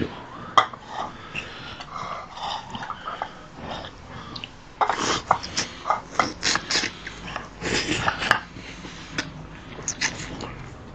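Wet eating sounds from braised pig's trotter being bitten and sucked off the bone: slurps, sucks and lip smacks, sparse at first and coming thick and fast from about halfway through.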